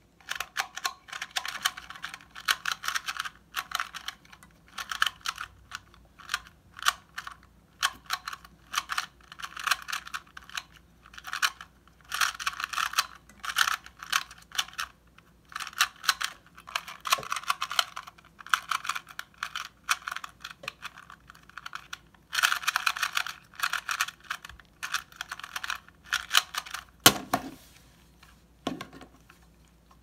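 Plastic 2x2 Rubik's cube being turned quickly to scramble it: bursts of fast clicking and rattling layer turns with short pauses between. Near the end come two dull knocks, the first the loudest sound of all.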